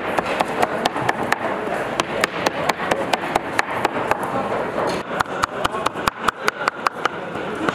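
Kitchen clatter: rapid, irregular knocks and clacks, several a second, over a murmur of voices and kitchen noise.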